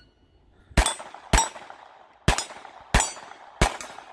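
A .22 rimfire pistol fires five shots, unevenly spaced over about three seconds. Each shot is followed by the ring of a steel target plate being hit.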